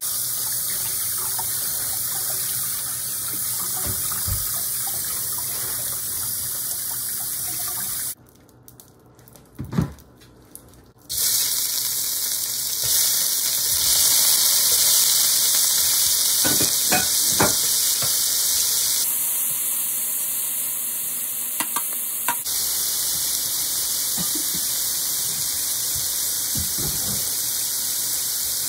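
Tap water running steadily onto broccoli in a plastic colander. After a short quieter break with a single knock, raw shrimp sizzle steadily in hot oil in an electric skillet, with scattered clicks as they are dropped in.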